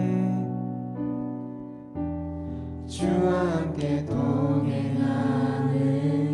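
Worship song music: held chords with sung voices, dipping in level around two seconds in, then voices entering louder about three seconds in.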